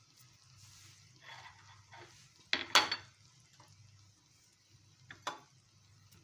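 A spoon scraping and knocking against a cooking pan while the biryani is layered. There are a few soft scrapes, then two sharp clinks a little before halfway, and two more knocks near the end.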